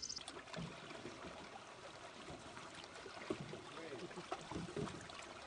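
Canoe paddles dipping and water trickling and lapping along canoe hulls on a calm lake.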